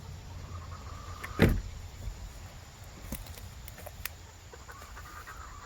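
A hen gives soft, drawn-out clucking calls, with one loud knock about a second and a half in and a few lighter clicks after it.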